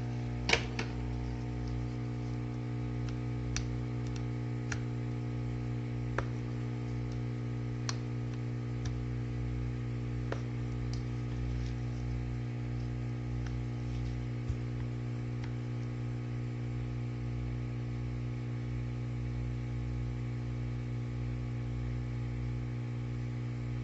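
Small sharp clicks and taps of repair tools against a phone, spaced irregularly every second or few, the loudest about half a second in, over a steady electrical hum.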